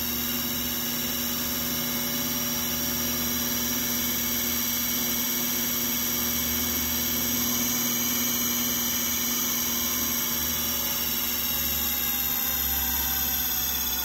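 Brushless hoverboard hub motor spinning a fan blade at high speed: a steady electric whine with several held tones over a rush of air from the blade.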